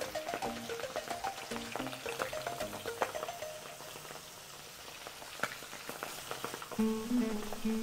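Flour-coated squid deep-frying in hot oil in a wok, a continuous sizzle with many small crackles and pops. Background music plays over it, fading out for a few seconds in the middle and returning near the end.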